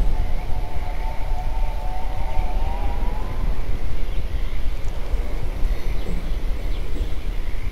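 Eerie horror-ambience sound effect: a steady low rumbling wash of noise, with a wavering siren-like wail over it for the first three and a half seconds that rises a little before fading out.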